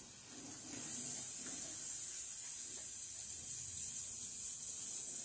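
Steady high hiss of a savoury crêpe cooking in a small frying pan on a lit gas burner.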